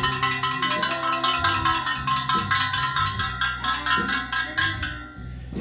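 The steel spokes of a freshly laced 1972 Yamaha R5 motorcycle wheel are struck in quick succession with a screwdriver, about seven metallic pings a second, each ringing at a similar pitch. This is a spoke tension test, and the even ringing shows the spokes are close to evenly tensioned.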